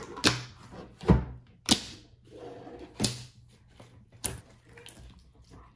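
About five sharp clicks and taps at irregular intervals as slime and its small plastic tubs and mix-in packets are handled.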